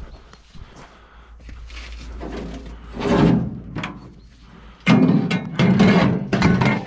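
A metal wheelbarrow being hauled out and a spade dropped into its tub: one clatter about three seconds in, then a longer run of banging and rattling with some metallic ringing.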